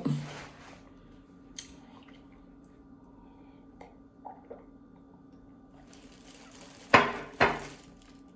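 Eating crab legs in butter sauce: a few faint clicks and small wet sounds, then two loud sudden sounds about half a second apart near the end.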